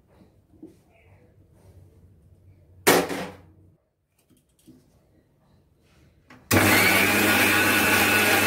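Electric mixer grinder with a small steel jar grinding mango pieces into a mustard paste: a brief burst about three seconds in, then the motor starts again near the end and runs steadily.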